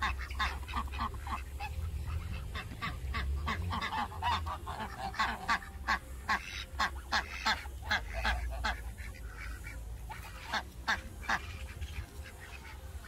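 A flock of domestic ducks and geese calling: a quick run of short quacks and honks, several a second, thinning to a few scattered calls toward the end.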